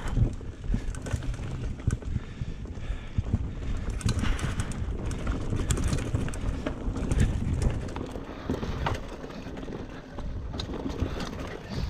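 Mountain bike riding over a rocky dirt trail. The tyres give a steady low rumble over the ground, and the bike knocks and rattles over rocks and roots.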